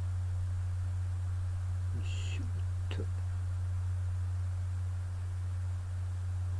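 A steady low hum runs under the work, with a brief light clatter about two seconds in and a sharp click about a second later, typical of small parts being handled during laptop disassembly.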